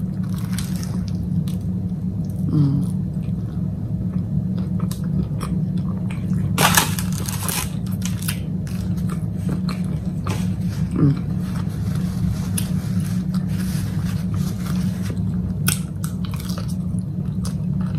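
Biting and chewing a toasted bacon and egg sandwich and a strip of bacon: short crunching clicks from the mouth, with a couple of louder crunches about seven seconds in, over a steady low hum.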